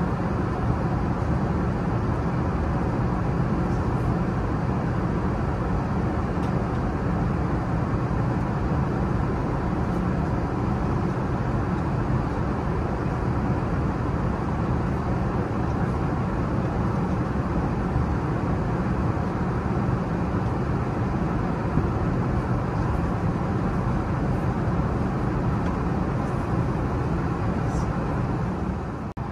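Steady cabin noise of an Airbus A380 in flight: an even, unbroken rush of airflow and engine noise.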